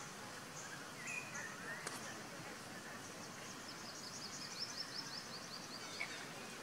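Birds chirping over a steady background hiss: a few short calls in the first two seconds, then a quick run of high chirps around the middle.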